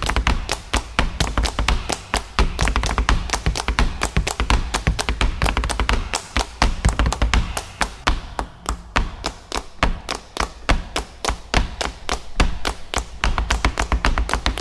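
Rapid, steady percussive tapping, about seven or eight sharp strikes a second, over a low bass in a rhythmic music track. The tapping thins out briefly a little past the middle.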